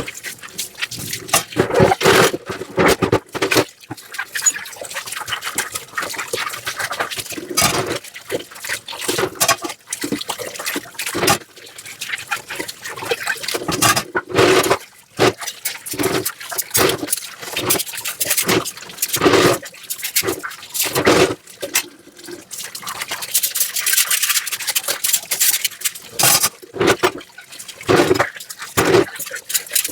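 Dishes being washed by hand in a sink: irregular clinks and knocks of dishes, scrubbing, and splashing water, with a stretch of more steadily running water about two-thirds of the way in.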